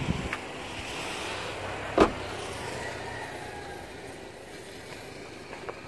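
Steady outdoor background noise with no clear single source, broken by one short knock about two seconds in.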